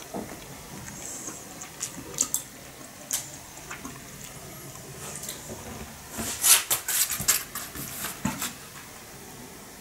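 Handling noise: scattered light clicks and taps, with a quick flurry of louder clicks from about six to eight and a half seconds in.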